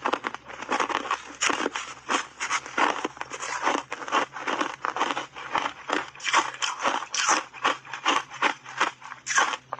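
Close-miked crunching of shaved ice coated in matcha powder being chewed in the mouth: a quick run of crisp crunches, about three to four a second.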